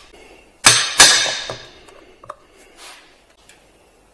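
Two quick hammer blows on a Polaris 700 engine, knocking the cylinder head loose, each with a short ringing tail; a light clink follows about a second later.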